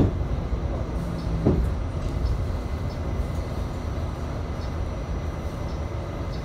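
R68A subway car running along the track, heard from inside the car: a steady low rumble, with a knock right at the start and another about a second and a half in.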